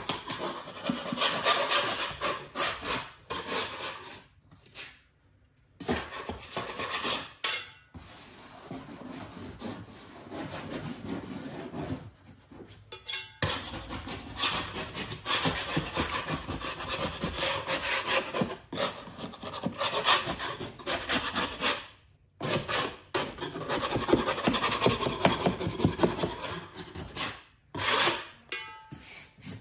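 A small metal hand scraper dragged back and forth over painted, water-damaged drywall: a rasping scrape in repeated strokes with several short pauses. It is a test by ear, where the scrape sounds hollow over areas in which paint and drywall paper have lifted.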